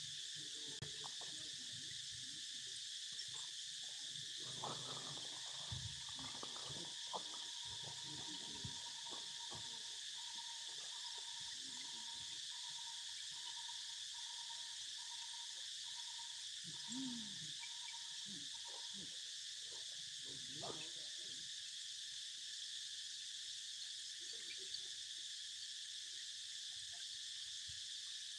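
Steady, unbroken chorus of forest insects. Occasional faint rustles and knocks, and one short call about two-thirds of the way through.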